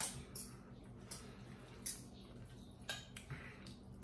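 Metal fork clinking and scraping against a stainless steel bowl, about five short sharp clinks at uneven intervals.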